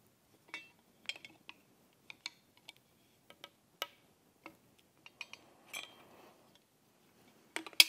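Metal wrench clinking and ticking against threaded pipe fittings and a steel plate while the coolant-nozzle plumbing is tightened. Irregular sharp clicks and clinks, about a dozen, some with a short ring, the loudest cluster near the end.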